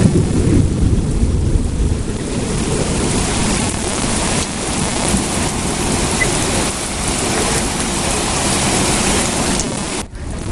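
Heavy rain pouring steadily, with a low thunder rumble in the first couple of seconds. The sound drops out briefly near the end.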